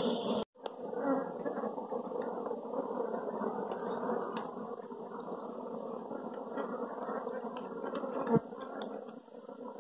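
Wild honeybee colony humming on its open comb: a steady, dense buzz after a brief silent break just after the start, with a single knock about eight seconds in.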